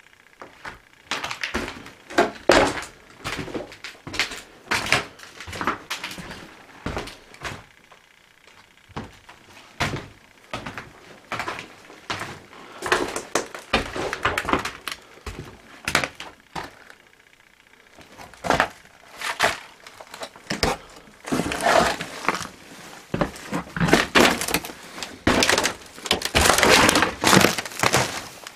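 Irregular footsteps crunching over debris and old wooden boards, with scattered knocks. In the last several seconds the crunching gets denser and louder, steps through dry brush and broken boards.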